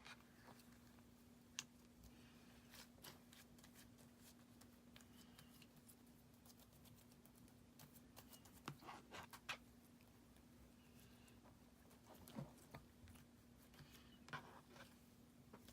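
Clear slime being kneaded and stretched by hand with glitter mixed in, giving faint sticky clicks and small pops in scattered clusters, over a steady low hum.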